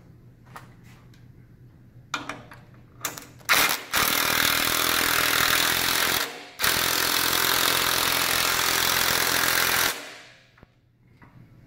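Ridgid cordless impact driver with a 9/16 socket tightening a bolt on the lift carriage's cable pulley. A few short spurts about two seconds in, then a long run of hammering broken by a brief pause midway, winding down near the end.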